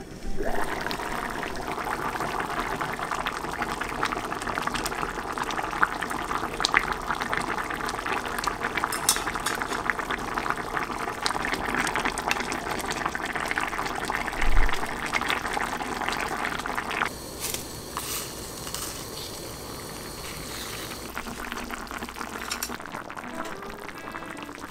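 Thick red stew boiling hard in a pot: a dense, steady crackle of bubbles popping, with one brief low knock about two-thirds of the way through the bubbling. The bubbling turns much quieter and softer later on.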